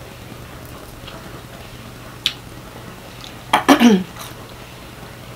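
Close-miked eating sounds of a person eating chicken wings. There is a single sharp mouth click about two seconds in. Near four seconds comes a loud burst of lip smacking with a short falling 'mm' as wing meat goes into the mouth. A low steady hum runs underneath.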